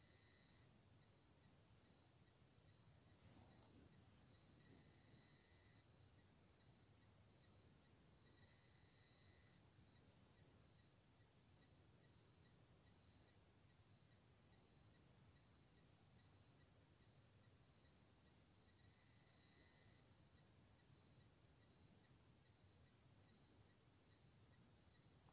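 Near silence: faint background tone, a steady high-pitched whine with faint, evenly spaced pulses beneath it.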